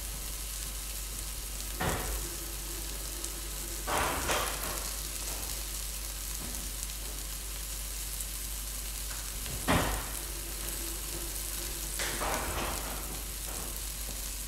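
Onions frying in a pan of oil and butter, a steady sizzle. Four short knocks and clatters break into it, the loudest about two-thirds of the way through.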